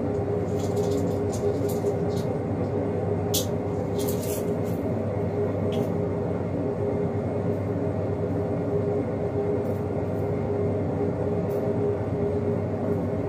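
Steady machine hum with several held tones, unchanging throughout, with a few light clicks about three to six seconds in.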